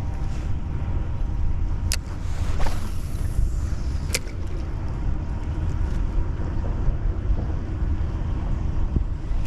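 Low, steady rumble of wind buffeting the microphone outdoors, with two sharp clicks, about two seconds and four seconds in.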